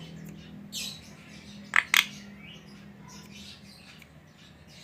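Javan myna calling: a soft note about a second in, then two sharp, loud squawks in quick succession about two seconds in, followed by fainter chirps. A steady low hum sits underneath for the first few seconds.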